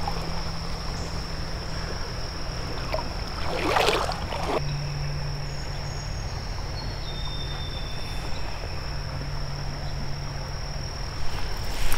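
Quiet outdoor creek ambience: a steady high-pitched insect drone over a low steady hum, with one brief noisy swish or splash about four seconds in.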